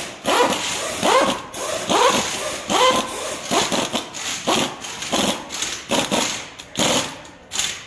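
Pneumatic impact wrench firing in a rapid series of short bursts on a car's wheel lug nuts, each burst a whine that rises and falls in pitch with a hiss of air.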